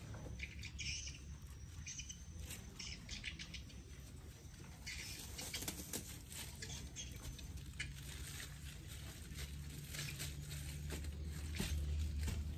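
Hands and a hoe working loose soil and dry plant debris: scattered soft scrapes, crackles and pats, louder near the end, over a steady low hum.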